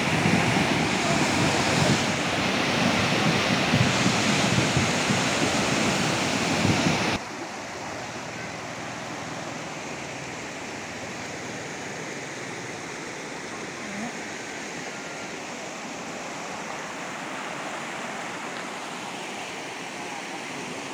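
River in flash flood, its floodwater rushing loudly. About seven seconds in the sound cuts off suddenly to a much quieter, steady rush.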